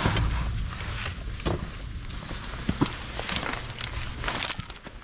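Metal fittings on a draft horse's harness jingling and clinking as the harness is handled, with a few knocks. The jingling grows louder in the second half.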